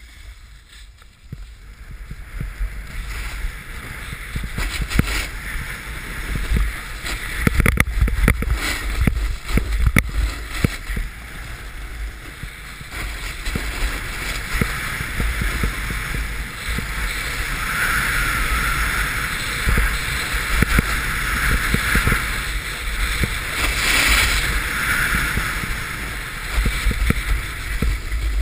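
Wind buffeting a GoPro's microphone while riding fast downhill, with the rider's edges scraping and hissing over packed snow. The scraping grows louder about halfway through, with occasional knocks.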